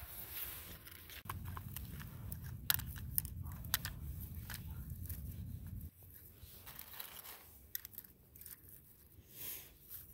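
A set of metal ratcheting combination wrenches being handled in a plastic holder: scattered sharp clicks of metal on plastic, with crinkling. A low rumble underneath cuts off suddenly about six seconds in.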